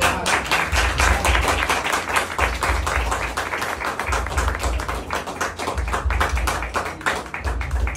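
Spoon stirring a glass of detergent solution mixed with turmeric, clinking rapidly against the glass, several clinks a second, with a few low thumps from handling.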